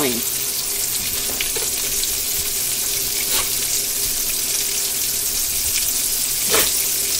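Battered squirrel pieces frying in a pan, a steady sizzle with a couple of brief louder crackles.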